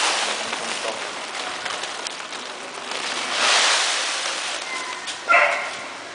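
Granular or powder material pouring from a woven plastic sack into the open stainless steel bowl of a high speed drying mixer: a rushing hiss that swells near the start and again in the middle. Near the end comes one short, loud call.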